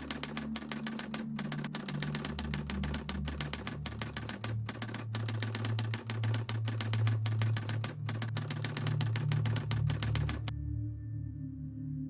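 A fast run of sharp, typewriter-like clicks over a low, sustained musical drone. The clicking cuts off suddenly near the end, leaving only the drone.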